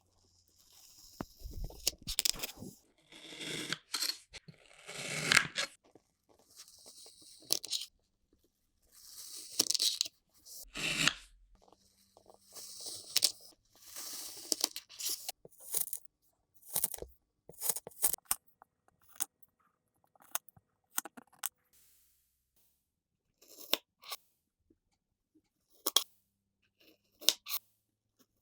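Kinetic sand being cut and squished: a run of crunchy, scraping strokes, longer and close together at first, then shorter and more spread out.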